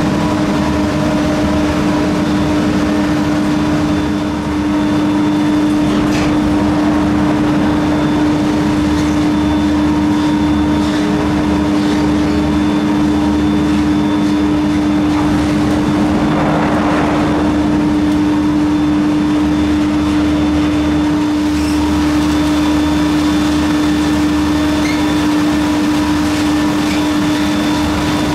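Terminal machinery of a Montaz Mautino detachable gondola running: a steady mechanical hum with one constant tone and a low rumble. A few short clicks come as cabins roll through the station, with a brief swell of rolling noise about two-thirds through.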